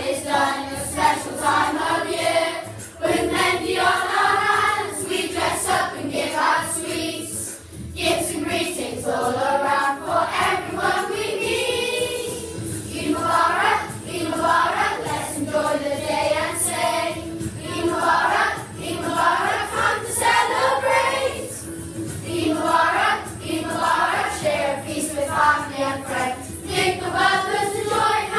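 A class of primary-school children singing a song together in unison, phrase after phrase.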